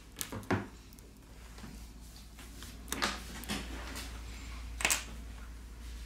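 A few sharp little clicks and taps, two near the start, two around the middle and one near the end, as small plastic and metal smartphone parts are handled and fitted back into the phone. A low steady hum runs underneath.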